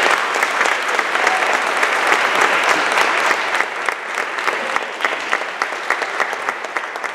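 Audience applauding, a dense clatter of many hands clapping that grows a little thinner near the end.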